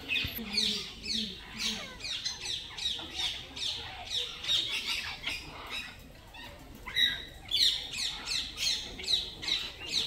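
Parrots chirping: a quick, continuous series of short, high, downward-sliding chirps, several a second, with a louder call about seven seconds in.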